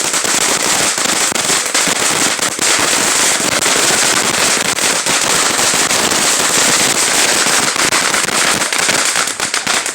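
Small firework fountain burning, with a steady hiss of spraying sparks and dense crackling throughout. It dies away right at the end.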